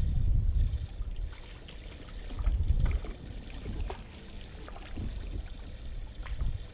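Water lapping against a fishing boat's hull, with a low rumble that swells and fades a few times and scattered faint ticks.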